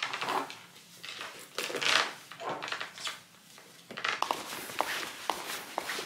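Soft rustling and handling as a silk scarf is tied onto a quilted leather handbag. From about four seconds in, footsteps tap on a hard pavement at about two steps a second.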